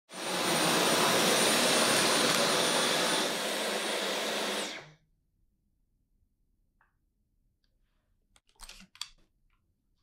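Dyson V12 Detect Slim cordless stick vacuum running: a steady rush of air with a thin high whine, which cuts off about five seconds in. A few faint clicks follow near the end.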